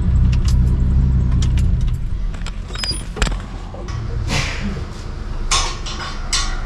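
A low engine rumble for about the first two seconds stops. Then come metal clinks and several scraping rattles as hands and tools work on the pickup's underside: the loose gearshift linkage and exhaust pipe being tightened.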